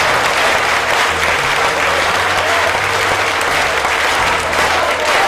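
A crowd applauding: steady, dense clapping with no pause.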